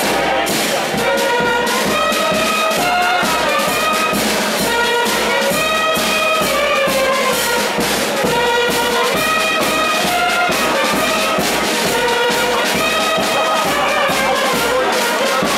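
Live brass band playing a melody led by trumpets over a steady bass-drum beat.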